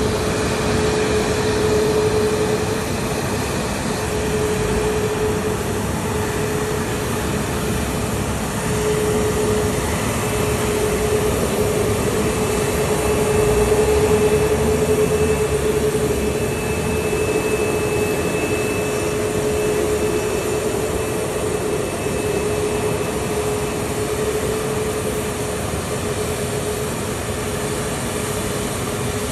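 Boeing 737-8 MAX's CFM LEAP-1B turbofan engines at taxi power: a steady rushing noise with a steady hum, growing a little louder about halfway through as the jet passes closest.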